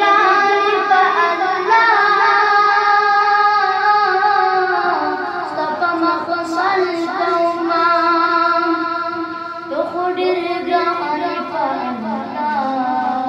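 A boy singing a naat unaccompanied, holding long notes linked by gliding melodic runs, with a sharp rise in pitch about ten seconds in.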